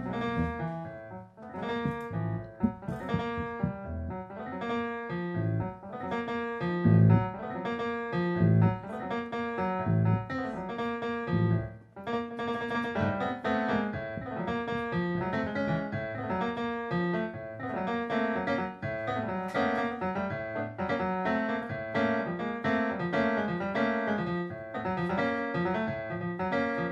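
Piano playing a busy passage of quick runs and chords, with a brief break about twelve seconds in.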